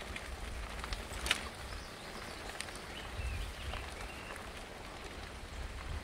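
Fat tyres of a Fat Tad recumbent trike rolling and crunching over a sandy dirt trail, with a low rumble and scattered small crackles. Faint birds chirp a few times about three seconds in.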